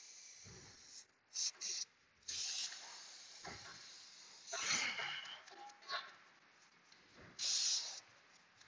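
Aerosol brake cleaner sprayed onto a brake caliper in about five short hissing bursts, two quick ones just after a second in and longer ones in the middle and near the end, to wash off brake dust.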